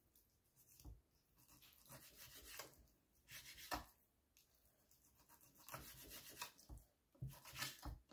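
Faint knife strokes slicing raw beef on a wooden cutting board, soft rubbing with a few short taps of the blade on the board.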